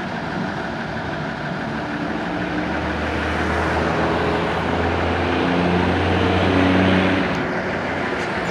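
Road traffic: a motor vehicle's engine running close by over steady tyre and road noise, its hum swelling through the middle and easing off near the end.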